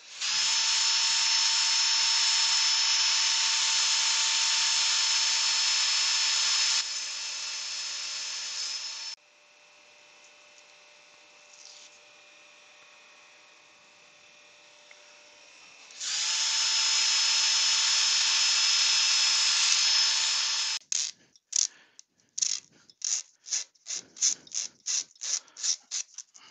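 Cordless drill with a sanding disc running at a steady whine in two spells, power-sanding a turned wooden lid on the lathe; each spell spins up briefly at the start. Between the spells a quieter steady hum is heard. Near the end a rapid run of short rubbing strokes follows, about three or four a second.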